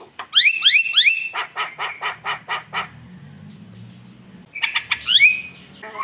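Javan myna (jalak kebo) calling: a few quick rising whistled notes, then a fast run of short repeated notes at about six a second. After a pause of about a second and a half, another burst of rising calls comes near the end.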